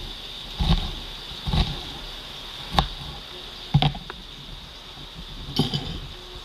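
Knife cutting an onion on a plastic cutting board: four knocks of the blade on the board, roughly a second apart, then a short cluster of light knocks near the end as the onion pieces are handled.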